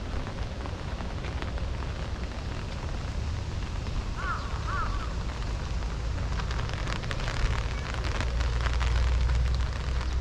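Rain falling, with many small drops crackling close to the microphone over a steady low rumble that grows louder near the end. Two short chirps sound about four seconds in.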